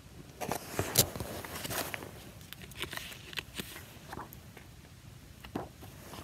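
Paper pages of a picture book being handled and turned by cold fingers fumbling to grip them: a run of rustles and sharp clicks in the first two seconds, the loudest about a second in, then scattered ticks and crinkles.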